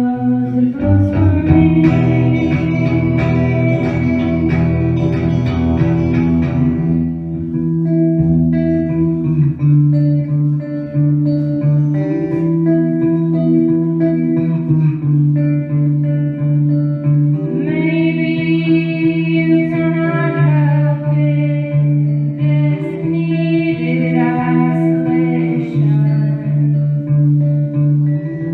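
Live music: guitar playing a repeating melody over held low notes, with singing in places.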